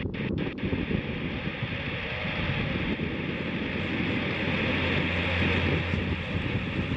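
Cessna 152's four-cylinder Lycoming engine and propeller at full takeoff power, climbing out after takeoff: a steady drone whose low tone grows stronger about four seconds in, with wind noise on the microphone. A few short clicks sound at the very start.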